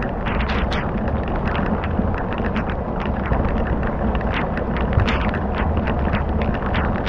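Fire crackling, with many irregular sharp pops over a steady low rumble.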